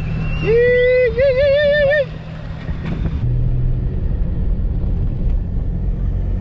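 Toyota Hilux driving, its engine and tyres a steady low rumble inside the cab. About half a second in, a loud whoop rises, holds, then warbles up and down for about a second before cutting off.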